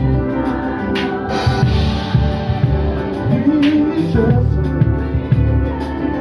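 Live gospel band playing: a drum kit driving the beat with two cymbal crashes, about a second in and again near four seconds in, over guitar and singing voices.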